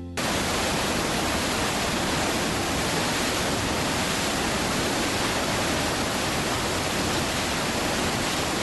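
Steady static hiss, even across all pitches with no tone or rhythm in it, cutting in abruptly and holding at one level.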